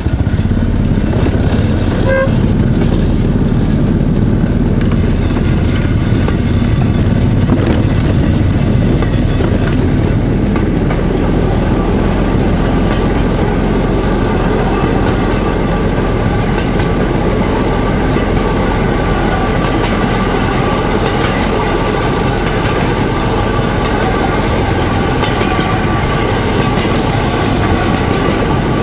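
Small-engined motor draisine running along narrow-gauge track: a steady engine drone with wheel clatter on the rails.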